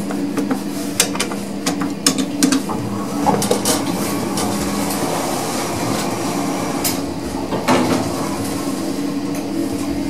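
Schindler machine-room-less lift car running, heard from inside the car: a steady hum and rattle, broken by several sharp clicks, among them a floor button being pressed.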